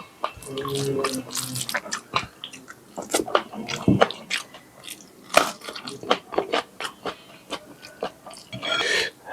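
Close-up chewing of a mouthful of rice, chicken curry and salad: a run of wet mouth clicks, smacks and crunches at an irregular pace.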